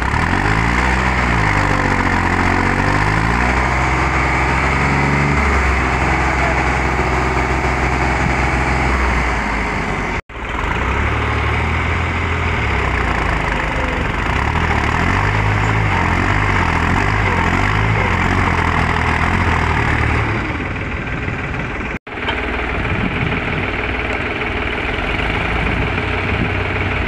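New Holland 3630 tractor's three-cylinder diesel engine running under heavy load as the tractor, stuck in deep sand with a land leveller hitched on, strains to pull free. The revs rise and fall over the first couple of seconds, then hold steady, with two brief dropouts.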